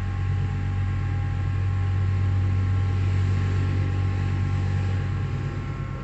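Pilawa hydraulic passenger lift travelling upward: its pump motor runs with a steady low hum and a whine of several high tones, easing off slightly near the end.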